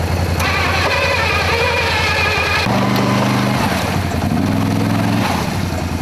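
An off-road vehicle's engine running as a steady pulsing drone. About halfway through, a lower set of tones comes in and changes pitch in steps for a couple of seconds.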